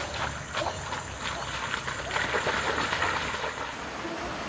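Shallow stream water running over stones, with a few sharp splashes from wading in the first second or so.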